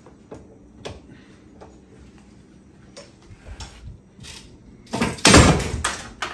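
Small clicks and taps as a geode is set up to be popped open, then a loud crunching crack lasting about a second as the rock splits, about five seconds in.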